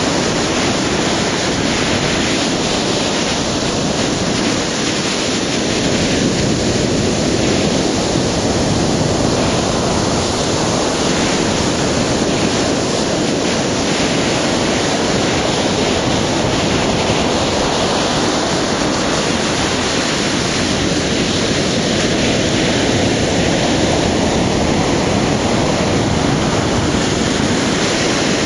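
Ocean surf breaking on a beach: a steady, loud rush of waves and white water.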